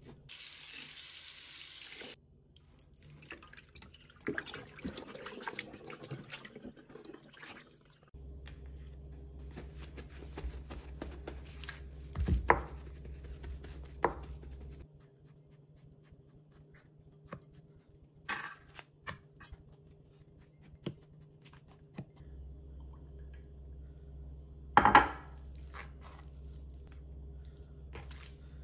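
A kitchen tap runs for about two seconds as a raw leg of lamb is rinsed in the sink, then come wet handling noises. Later a knife works on the lamb on a wooden cutting board with a few sharp knocks, the loudest near the end, over a low steady hum that comes and goes.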